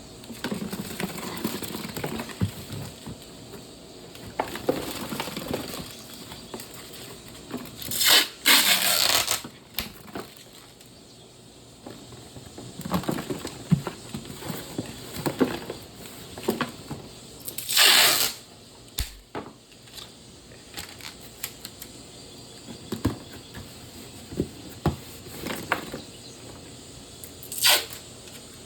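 Packing tape being pulled off the roll onto a cardboard box: three loud rips, about ten seconds apart, with rustling and handling of the box between them.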